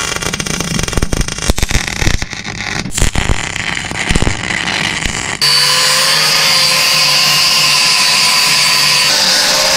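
Electric arc welding, with the arc crackling irregularly as a steering drag link is welded onto an axle. About five and a half seconds in it cuts off and an angle grinder starts abruptly, running steadily with a high whine while grinding the metal.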